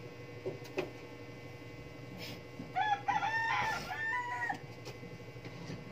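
A rooster crowing once, starting nearly three seconds in and ending on a longer held note.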